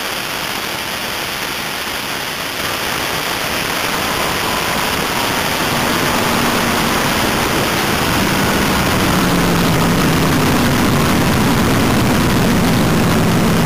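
Wind rushing over the onboard microphone of a drag car as it rolls along at low speed. About a third of the way in the sound steps up, and from about halfway the car's engine can be heard running low and steady through its open headers.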